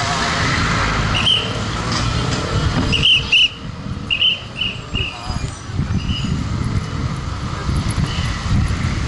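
Low engine and road rumble of a vehicle moving slowly through street traffic. Short high chirps come and go, several bunched together a few seconds in.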